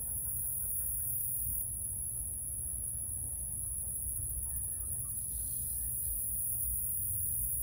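Insects trilling steadily and high-pitched, over a constant low rumble.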